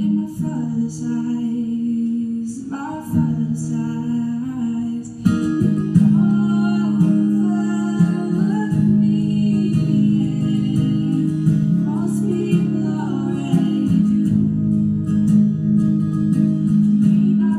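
A woman singing to her own acoustic guitar, the guitar ringing steady chords under her voice; the song grows louder about five seconds in.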